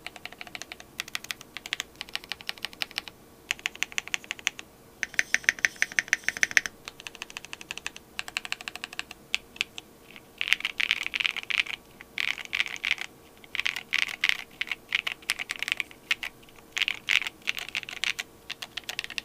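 Tomo SE mechanical keyboard with Graphite Gold switches, a polycarbonate plate and case and PCB foam, typed on with Osume Keys Dusk keycaps. Keystrokes come in quick runs with short pauses between, and the typing grows denser and louder in the second half.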